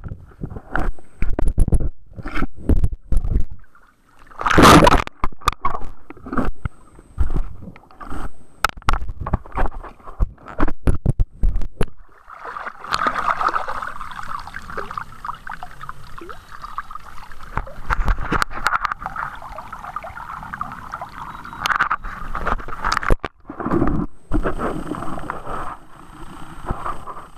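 Camera plunged in lake water: irregular muffled knocks, thuds and gurgles as water moves over the submerged microphone. About halfway through it surfaces into steadier noise of water splashing around the wader, then goes under again near the end with more knocks.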